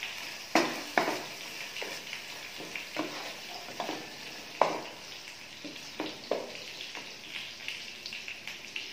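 Wooden spatula stirring a thick, sizzling masala in a nonstick pot: a steady frying sizzle with irregular scrapes and knocks of the spatula against the pot, the loudest about half a second in and just past the middle.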